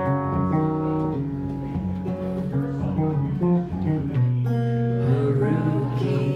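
Live band music: guitar playing an instrumental passage between sung lines.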